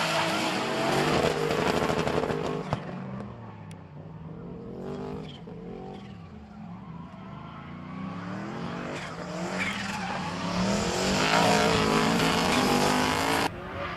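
Drift cars' engines revving hard, the pitch rising and falling as they slide, over a hiss of tyres spinning and squealing. Loud at first, it fades after a few seconds, builds again as another car passes close, and cuts off abruptly near the end.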